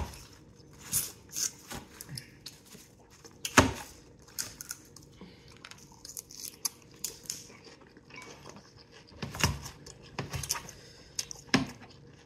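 Cooked crab shells cracking and clicking as crab legs are broken open and the meat picked out by hand, in scattered irregular snaps with one sharper crack about three and a half seconds in.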